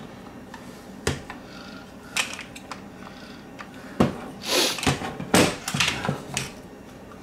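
Plastic refrigerator ice maker assembly being handled and turned over: scattered light plastic knocks and clicks about once a second, with a brief rustle of a paper towel about four and a half seconds in. A faint steady hum runs underneath.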